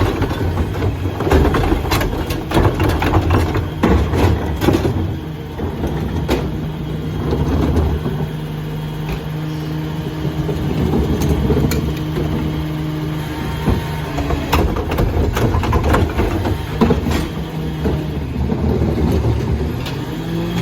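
Dennis Eagle rear-loader garbage truck working: its diesel engine runs throughout, with a string of sharp clanks and knocks in the first five seconds, then a steady hum for several seconds in the middle. The pitch rises near the end.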